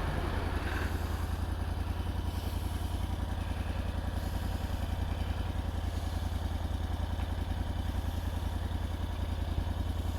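Engine idling steadily, with a fast, even firing pulse.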